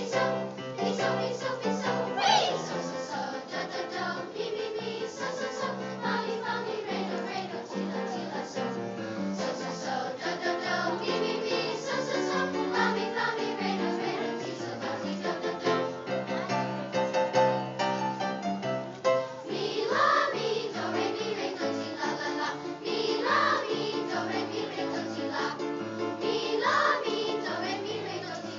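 Children's choir singing a song together over an instrumental accompaniment.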